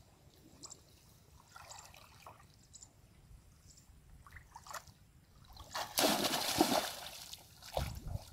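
Shallow muddy water sloshing and lightly splashing as a person wades through a flooded paddy. About six seconds in comes a louder splash lasting about a second and a half as she crouches down into the water.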